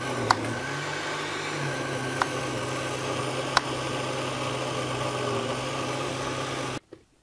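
Countertop blender running at full speed, blending a savoy cabbage smoothie. It is a steady motor hum whose pitch drops slightly about two seconds in, with three sharp ticks along the way, and it stops suddenly near the end.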